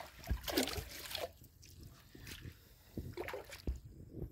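Water splashing and sloshing around a person wading waist-deep in a river and moving their arms through it, with a few short splashes later on.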